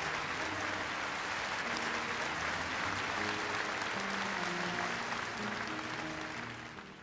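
Audience applauding over background music, both fading out near the end.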